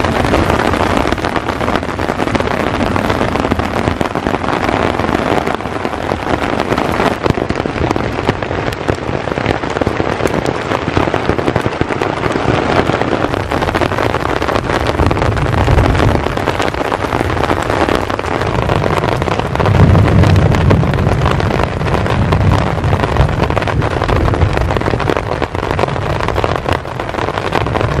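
Heavy hail falling in a forest, a dense crackle of hailstones striking the ground. A deep rumble swells up about halfway through and again about two-thirds through.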